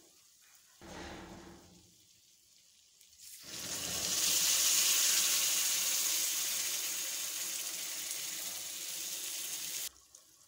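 Liquid poured from a ladle into hot roasted halwa mixture in a metal pan, hissing as it hits: a short splash about a second in, then a loud steady hiss from about three and a half seconds in that cuts off suddenly near the end.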